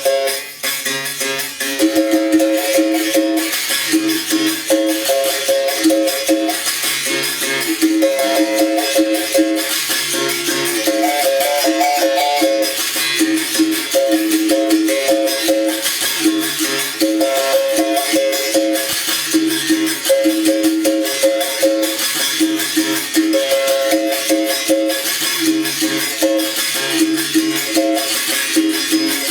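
Bamboo berimbau being played in a repeating rhythm: the struck wire rings, switching between a low note and a higher one, over the steady shaking of a caxixi rattle.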